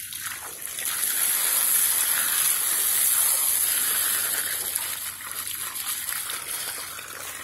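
Water gushing steadily from a garden hose, swelling for a few seconds and then easing off.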